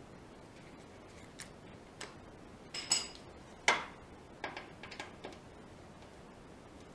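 A scatter of sharp metallic clicks and clinks from hand tools working under the motorcycle's engine for an oil change, one clink ringing briefly and one louder clank just past halfway.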